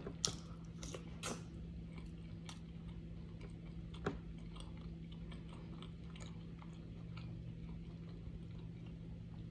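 Close-up chewing and mouth sounds of someone eating, with scattered soft clicks and smacks over a steady low hum.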